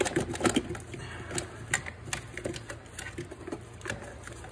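Irregular plastic clicks and knocks as the wiring grommet and plastic ECU box are pulled and worked loose by hand, with a quick cluster of clicks right at the start.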